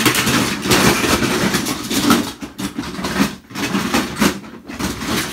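Rummaging through a box of toy trains: an irregular clatter and rustle of plastic and die-cast pieces being moved about.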